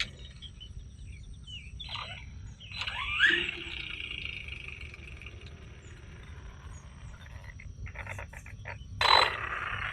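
Arrma Vorteks RC stadium truck driving, its electric motor whine sliding in pitch about three seconds in, then a quick run of clicks near the end. The clicking is the noise the drivers are hunting for after the spur gear was replaced.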